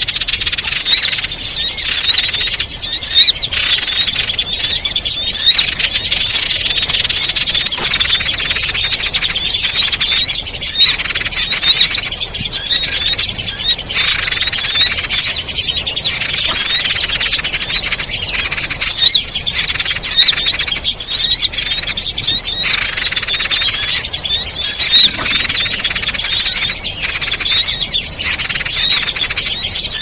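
Dense, continuous chatter of small songbirds: rapid high chirps following one another without a break, played as a bird-trapping lure recording.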